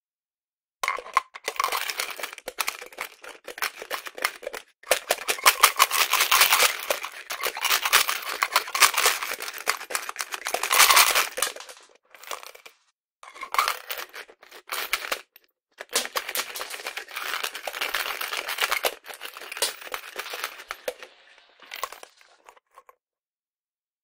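A piggy bank being emptied with a knife: coins rattle and scrape out along a knife blade worked in the coin slot. The sound comes in several long bouts of dense, rapid scraping and clicking, with short breaks between them.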